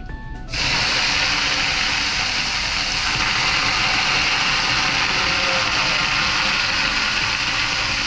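Water ladled onto hot sauna stove stones for a löyly: a loud hiss of steam starts suddenly about half a second in and runs on steadily as the water flashes off the rocks.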